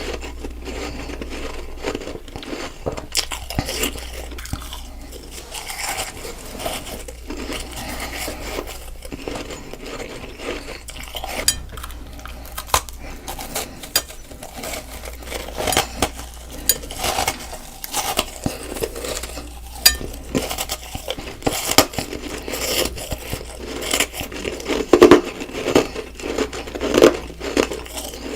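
Close-miked chewing and crunching of compacted freezer-frost snowballs: a steady run of sharp, crackling crunches and clicks, with louder crunches near the end.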